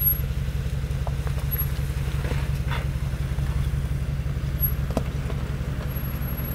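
Mercedes-AMG G63's twin-turbo V8 running at low revs with a steady, evenly pulsing burble as the SUV crawls slowly across a muddy side slope. A few faint knocks come in, about a second in and again near five seconds.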